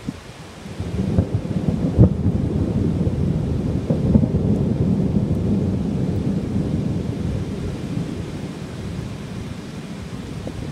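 Thunder rolling in a heavy rainstorm. A low rumble builds about a second in, with a sharp clap about two seconds in and another swell around four seconds, then it slowly dies away.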